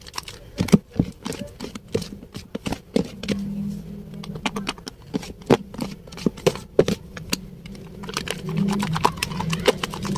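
Wet Dettol bar soap being lathered: a dense, irregular run of squelching clicks and pops. A low droning tone comes in about three seconds in and again near the end, where the lathering grows louder.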